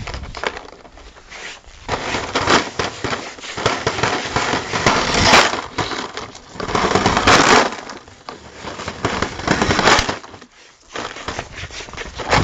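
Plastic bottle filled with small pebbles rattling and scraping across a tiled floor as a dog chases and shoves it along. The clatter comes in loud bursts, dropping away briefly near the end before starting again.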